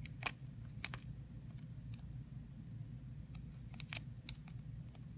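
Small piece of clear adhesive tape clicking and crackling as fingers wrap it around a strand of yarn: scattered sharp clicks over a low steady hum.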